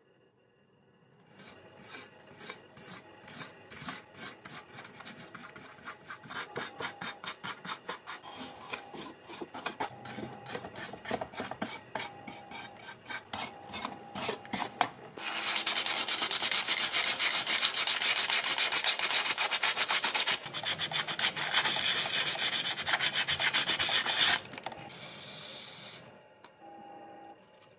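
Wire brush scrubbing loosened, bubbled paint off a metal model car body: quick back-and-forth scraping strokes that grow louder, then become a fast, continuous scrub about halfway through, before stopping near the end.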